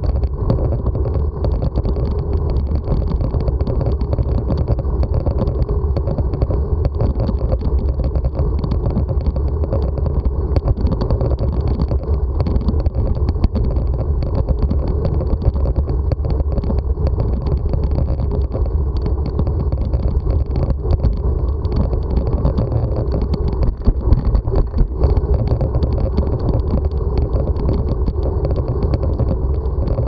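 Steady riding noise from a bicycle-mounted camera: wind buffeting the microphone and tyres rolling over an asphalt path, a constant low rumble with a few louder jolts about three-quarters of the way through.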